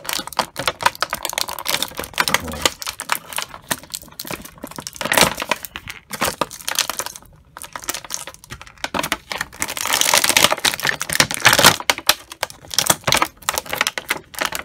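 Clear plastic packaging crinkling and crackling as hands work an action figure out of its tray, a rapid irregular run of sharp clicks that is loudest about two-thirds of the way through.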